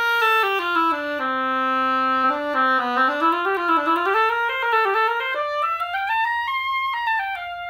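Oboe being played to test a freshly scraped and adjusted reed: a short phrase that opens on a held note, drops to a low held note, then moves up and down, climbing to its highest notes near the end before settling on a last note.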